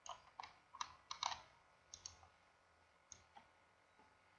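Faint, sharp computer mouse clicks, about nine scattered ones, some in quick pairs of press and release, mostly in the first two and a half seconds.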